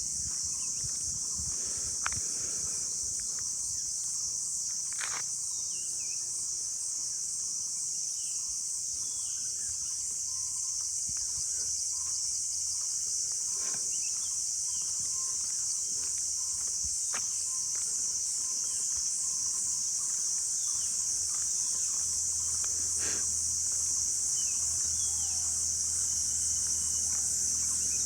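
A steady, high-pitched chorus of insects trilling, with scattered short chirps and a few faint clicks over it.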